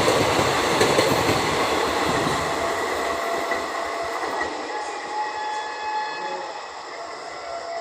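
Express train's ICF coaches rolling past on the rails without stopping. The rumble fades steadily as the last coaches go by, and faint thin high tones come in about two-thirds of the way through.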